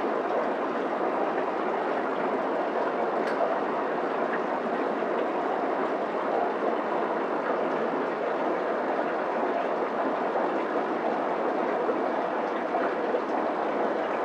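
Aquarium sponge filter bubbling: a steady rushing hiss of air and water in the tank.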